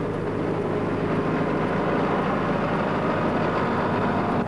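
Caterpillar motor grader's diesel engine running steadily under load while the blade works gravel.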